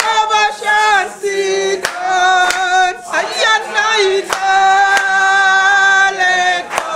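Rastafarian congregation singing a hymn together, a woman's voice prominent, with long held notes and scattered hand claps.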